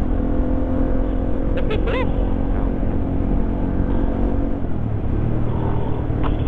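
Sport motorcycle engine running at a steady cruise while riding, over a heavy low rush of wind and road noise. The engine note drops to a lower pitch a little before five seconds in.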